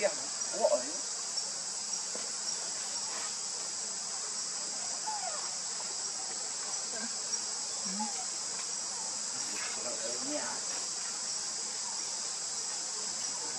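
Steady, high-pitched insect chorus of crickets or cicadas, with a few faint short calls scattered over it.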